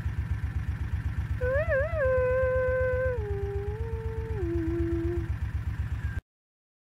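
Engine running with an even low throb, about nine beats a second. Over it, starting about a second and a half in, comes a long howl that wavers twice, holds, then drops in steps over about four seconds. All sound cuts off abruptly near the end.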